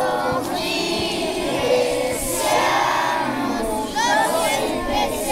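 A crowd of children's voices, many shouting and calling out at once.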